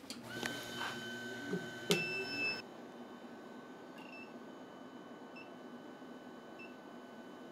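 Induction forge running with a steady high whine while it heats a steel bar in its coil. Its electronic beep sounds briefly about every second and a quarter. About two seconds in there is a click with a beep from the unit.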